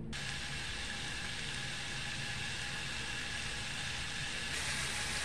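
Crumbled breakfast sausage sizzling steadily as it browns in a skillet. The sizzle starts suddenly and turns a little brighter about four and a half seconds in.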